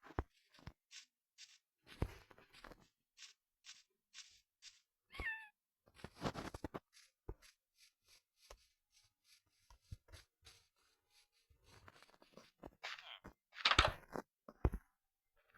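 A domestic cat gives one short, wavering meow about five seconds in, among scattered taps, clicks and rustling.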